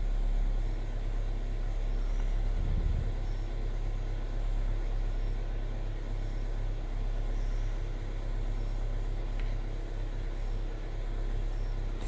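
2004 Toyota Corolla's 1.8 L four-cylinder engine idling with a steady, even hum.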